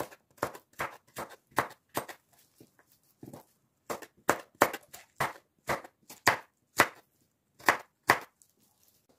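A hand-held crinkle-cut slicer chopping down through beetroot onto a cutting board, about two sharp strikes a second. The strikes pause briefly about two seconds in and stop near the end.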